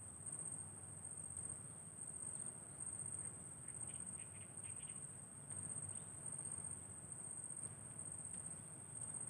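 Insects droning steadily on one high pitch over a faint low rumble.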